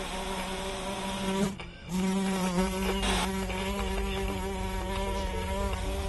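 Steady buzzing drone of a production-company logo sting, with a pitched hum under it. It cuts out briefly about one and a half seconds in, comes back, and has a short burst of hiss about three seconds in.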